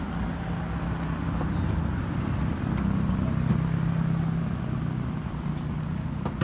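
Street noise with a motor vehicle engine running steadily, a low hum that grows slightly louder mid-way and eases off again.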